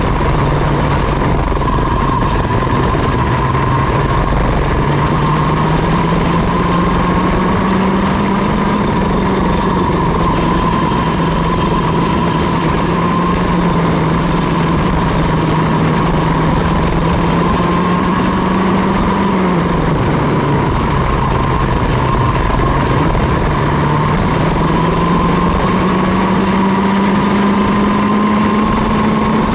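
Vortex Mini ROK 60cc two-stroke kart engine running at racing speed on board, its pitch rising and falling with the throttle: climbing in the first few seconds, holding, dropping sharply about two-thirds through as the kart slows for a corner, then climbing steadily again.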